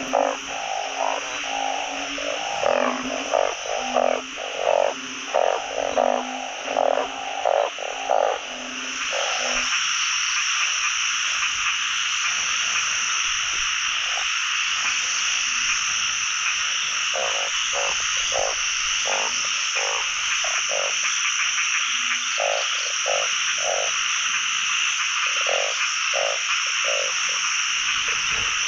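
Narrow-mouthed frogs (Thai 'ung') calling in a pond. For the first nine seconds or so, close frogs give deep croaks about one and a half times a second. Then a dense, steady chorus of higher calls takes over, with scattered deep croaks through it.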